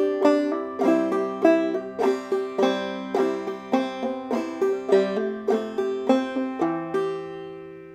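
Open-back five-string banjo played clawhammer style: a short melodic phrase of plucked notes and brush-thumb strums at an even pace. It ends on a chord that rings out and fades.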